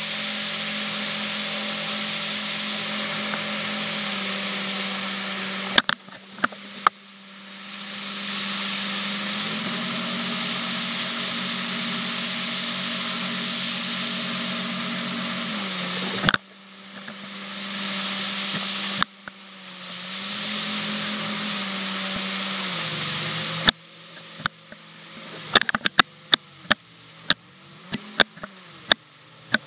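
Jet boat's outboard engine running hard at a steady pitch, easing off three times and building back up in between, over a hiss of water and wind. Near the end, with the engine down low, a quick run of sharp knocks.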